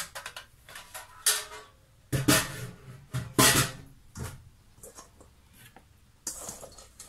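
Kitchen clatter: a handful of separate knocks and scrapes of a spoon and plastic food-processor parts being handled, with quiet gaps between them. The food processor's motor is not running.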